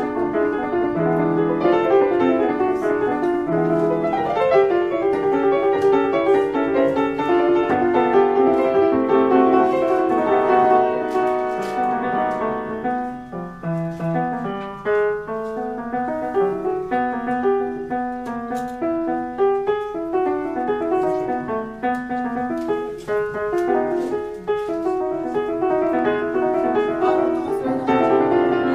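German Rittmüller upright piano built in 1872 being played: a dense, full passage that thins to lighter, more widely spaced notes about halfway through.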